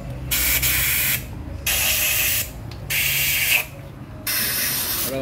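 Compressed-air blow gun blasting out the head bolt holes of an engine block, clearing rust and debris from the threads: four separate hissing bursts, each under a second, with short pauses between.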